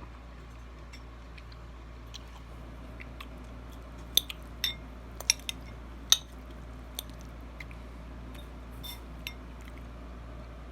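Eating sounds: faint chewing, with a handful of sharp clicks and taps, the loudest between about four and six seconds in. A steady low hum sits underneath.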